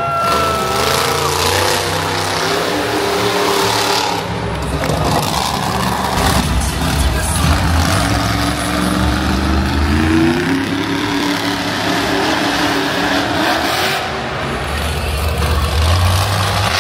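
Monster truck engine revving in an arena, its pitch rising and falling and climbing about halfway through as the truck drives across the floor.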